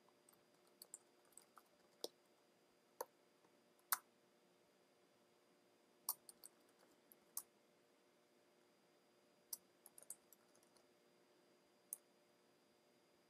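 Faint computer keyboard and mouse clicks, a dozen or so sharp clicks scattered at irregular intervals, as HTML code is typed into an editor.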